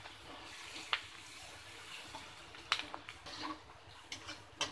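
Chopped onions sizzling faintly in oil in a metal kadai while a metal spatula stirs them, with a few sharp scrapes and taps of the spatula against the pan about a second in, near three seconds and just before the end.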